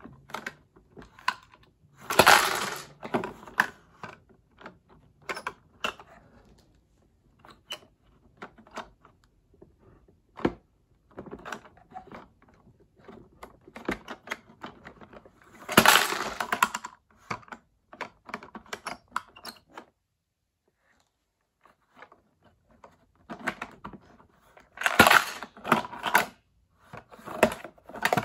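Plastic toy garbage truck's side-loading arm worked by hand, clicking and knocking as it grabs, lifts and tips small plastic bins. There are louder rattling clatters about two seconds in, around the middle, and twice near the end.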